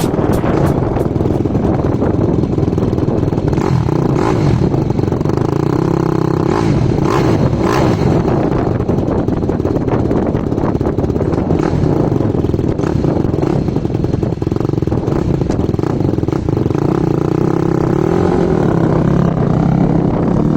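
An engine running steadily, with a few light clicks and clatter.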